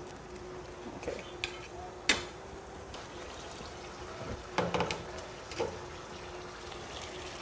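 Kitchen cooking sounds: a few light clinks and taps of a metal spoon and wire strainer against a pot, with some liquid sounds, over a faint steady hum.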